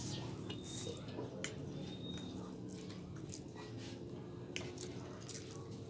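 Close-up eating sounds of a man chewing a mouthful of pancit canton noodles: chewing with short, irregular mouth clicks and smacks.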